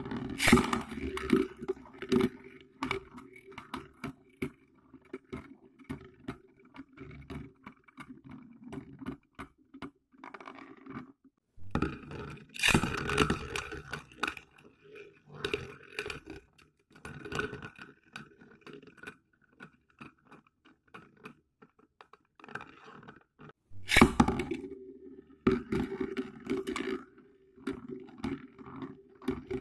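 Spinning Beyblade tops whirring on a plastic dish stadium, with many sharp clacks as they knock into each other and the rim. The hum drops out for short spells and comes back, and there are louder, denser bursts of clatter about twelve seconds in and again near twenty-four seconds.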